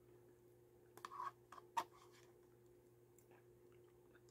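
Spoon clicking and scraping in a plastic yogurt cup while eating: a few short faint clicks about a second in and again near two seconds, over a steady low hum.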